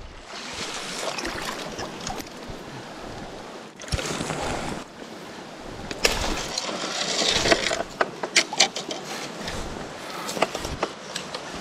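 Shallow stream water splashing and sloshing around a landing net held in the current, over the steady rush of the stream. Louder swells of splashing come about four and six seconds in, followed by a run of short sharp knocks and clicks.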